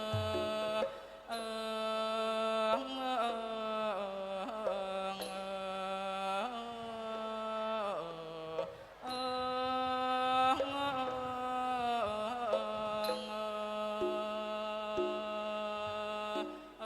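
Thai classical piphat ensemble music, with the ranat ek xylophone among the instruments. A sustained melody line bends and glides in pitch, and there is a low drum thud at the start.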